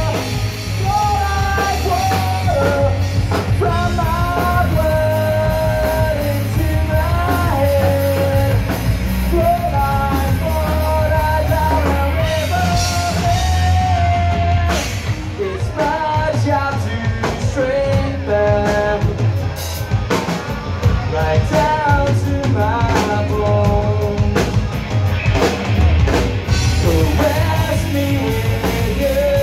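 Live rock band playing: a lead singer's voice over electric guitars, bass guitar and drum kit, with the cymbals and drums pushing harder about halfway through.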